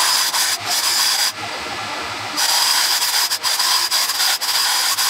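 Jackhammer fitted with a scraper blade and mounted in a wheeled cart, running as the blade scrapes old flooring adhesive off a concrete subfloor. It is loud, with a steady high whine, and eases off for about a second a little way in before running again.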